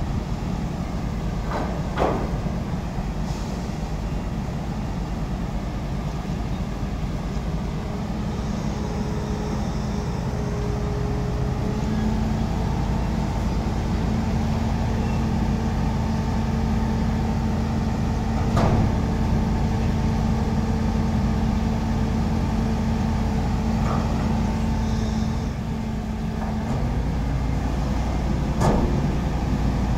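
Heavy diesel engine running steadily. It speeds up about twelve seconds in, holds a higher steady pitch for about thirteen seconds, then drops back. Three sharp knocks come several seconds apart.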